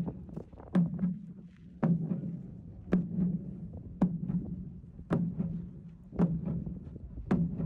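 Large ceremonial drum struck in a slow, even beat, about one stroke a second, each stroke leaving a low ringing boom. Fainter taps fall between the strokes.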